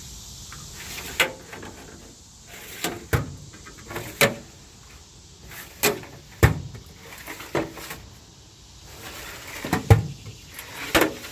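Steel side drawers of a Snap-on KR-562B rolling tool cart being pulled open and pushed shut: a string of about nine separate clunks and knocks, with the loudest near the middle and near the end.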